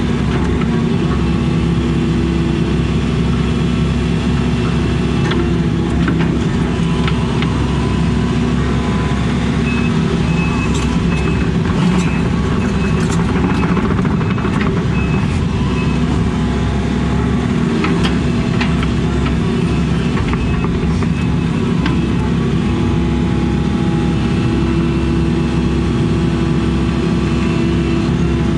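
Excavator's diesel engine running steadily under load, heard from inside the cab, while the bucket digs a trench in dirt. Occasional short knocks from the machine and bucket.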